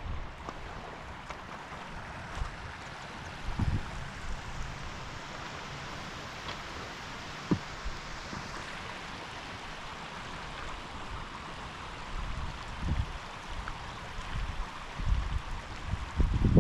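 Steady rush of river water flowing past, with low gusts of wind buffeting the microphone now and then, more of them near the end.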